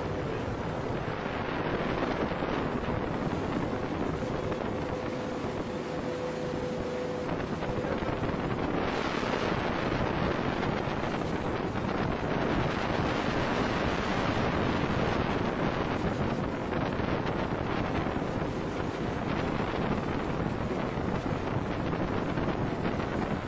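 Wind buffeting the microphone and water rushing past a boat under way, a steady noisy rush. A faint steady hum runs under it for the first eight seconds or so.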